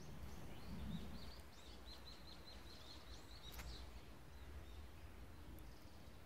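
A bird calling in a quick run of short, high chirps, about five a second, that stops a little under four seconds in. A faint low rumble lies under it.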